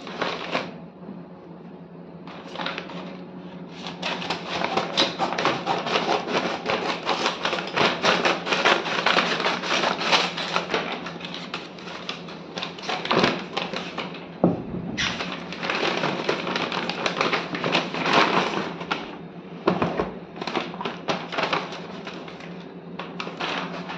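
Brown paper mailer bag crinkling and rustling in long irregular bursts as it is handled and cut open with scissors, over a faint steady low hum.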